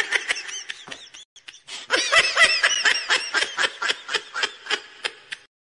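A snickering laugh sound effect: quick, pitched 'heh-heh' pulses, about five a second. One short burst trails off, then a longer run starts about two seconds in and fades away near the end.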